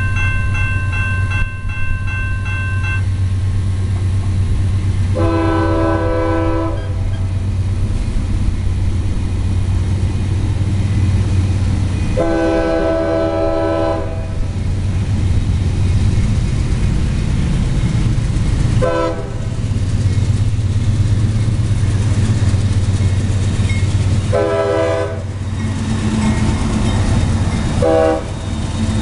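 Railroad crossing's warning bell ringing as the gates lower, stopping about three seconds in. Then a freight locomotive's air horn sounds the grade-crossing warning: two long blasts, then shorter ones, over a steady low rumble, as the locomotive reaches the crossing near the end.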